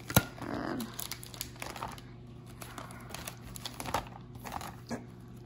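Clear plastic sleeve pages of a trading-card binder crinkling and rustling as they are turned, with a sharp click just after the start and lighter clicks and rustles after it.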